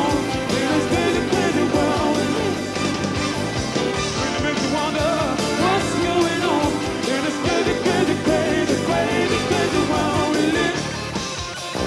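Rock band playing live, with a lead vocal singing over drums, bass and guitars. The band eases off slightly near the end.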